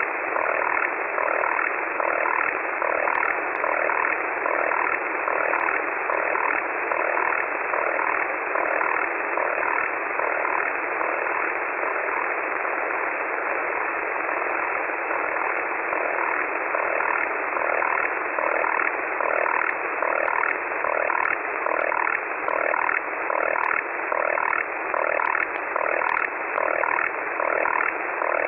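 Shortwave receiver audio of an unidentified 3-of-6 multitone data signal: several tones sound at once and switch in a rapid, even rhythm over steady receiver hiss.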